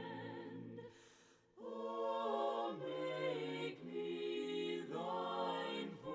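An a cappella choir singing a hymn softly, the voices holding and moving between chords, with a brief pause about a second in before they come back in.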